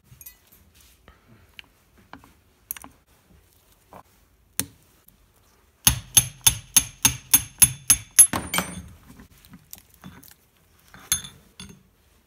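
Hand tool knocking on the cast-iron apron of a South Bend lathe. About six seconds in comes a quick run of about a dozen sharp metallic taps, roughly five a second, and a few light clinks of loose parts follow near the end.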